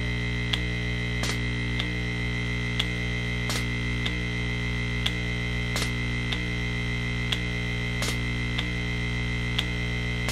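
Steady hum of a pneumatic drive, with a sharp click about every three-quarters of a second and every third click louder: valves switching air into the soft silicone robot's chambers in a repeating cycle.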